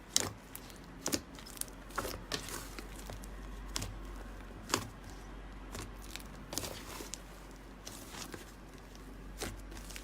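Slime being squeezed and poked by hand, giving irregular sticky clicks, pops and crackles.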